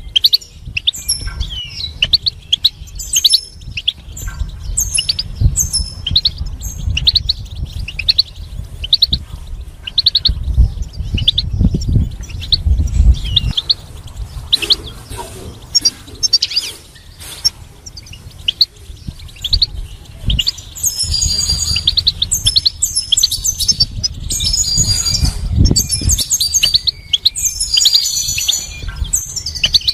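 European goldfinch singing: a rapid, continuous twittering of short high chirps and trills. The song grows denser and higher, more buzzy, about two-thirds of the way through.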